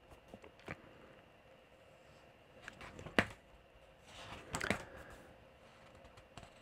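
Quiet pause with a few small handling clicks, one sharp click about three seconds in, and a brief rustle a little later, over a faint steady hum.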